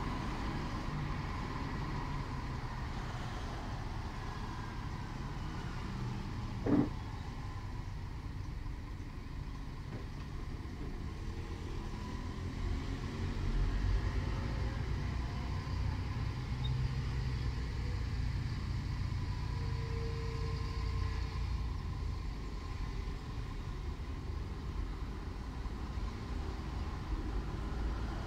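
Road traffic in a city, a steady low sound of passing cars that swells and eases. A single sharp click about seven seconds in.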